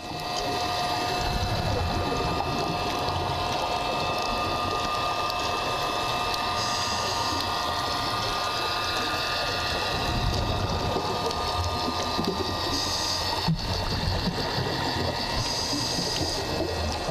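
Underwater scooter (diver propulsion vehicle) motor heard underwater: a steady electric whine over a hiss, with a few short bursts of exhaled regulator bubbles.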